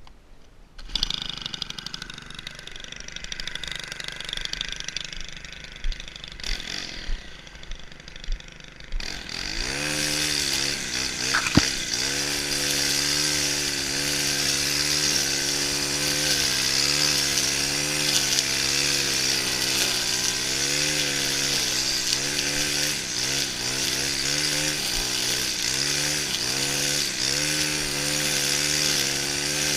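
Stihl FS 131 brushcutter's 36cc engine revving up about a third of the way in, then running at high revs with its pitch wavering as it trims grass. Before that, a quieter, uneven rustling noise.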